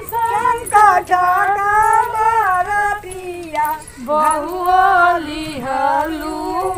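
Women singing a Chhath devotional folk song unaccompanied as they walk, a high voice holding long notes that slide up and down between short breaths.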